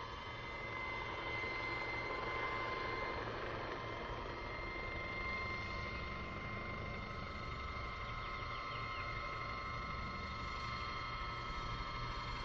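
Radio-controlled scale Bell 222 helicopter in flight, a steady whine of several held tones over a low rumble, pitched down and slowed by half-speed playback.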